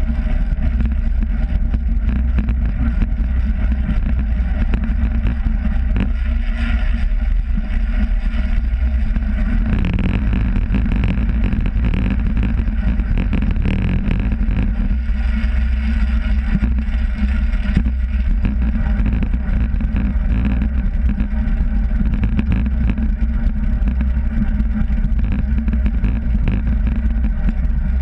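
Wind rushing over a GoPro camera on a track bicycle riding at speed, a steady low rumble mixed with the hum of tyres on a concrete velodrome track. It turns hissier about ten seconds in.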